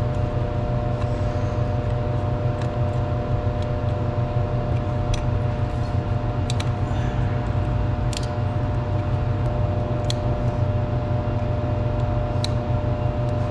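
Steady machinery hum with a strong low drone and several steady tones above it. Light sharp clicks come every second or two as ribbon-cable connectors and wiring are pushed into place inside the drive.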